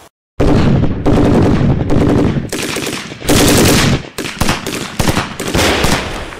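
Rapid gunfire in one long volley, like a machine gun, starting abruptly after a moment of silence, loudest in the middle and thinning into separate shots near the end.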